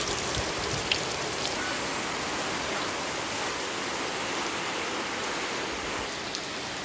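Heavy rain falling steadily, an even hiss with a few sharper drop ticks in the first second or so.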